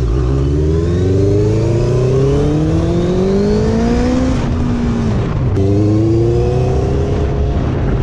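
Honda sport motorcycle engine accelerating, its pitch rising steadily for about four seconds and then falling away as the throttle is eased. After a sudden break it runs on at a steadier, lower pitch, rising slightly.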